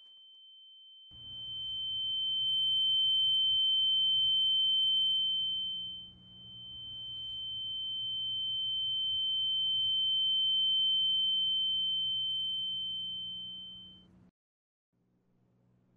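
A steady high-pitched ringing tone, the film sound effect of ears ringing after a blow, swelling up twice and then cutting off suddenly near the end, over a faint low hum.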